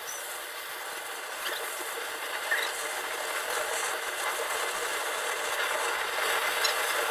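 Gas torch flame hissing steadily as it heats a knife blade for hardening, with a few faint ticks.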